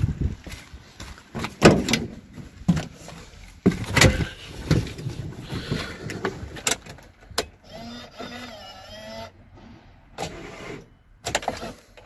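Handling noises from a van's cab door and cab: a string of knocks and clicks, then a wavering squeak lasting about a second and a half about two-thirds of the way through, and more knocks near the end.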